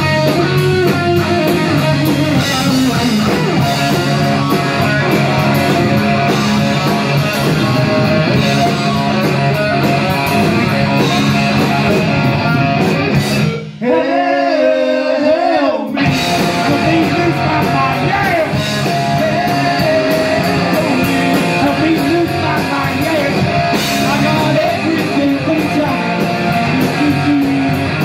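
Live rock band playing loud: electric guitars, bass, drums and a male singer. About halfway through, the band stops for about two seconds, leaving a single wavering note, then comes back in together.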